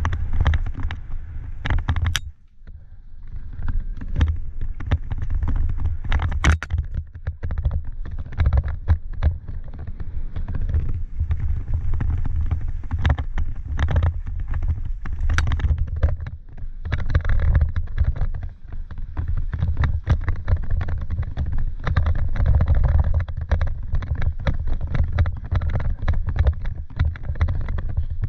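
Mountain bike ridden fast down a dirt singletrack, heard from a helmet-mounted camera: a constant low rumble of wind and tyres on dirt, with frequent sharp knocks and rattles from the bike over bumps. The rumble drops out briefly about two seconds in.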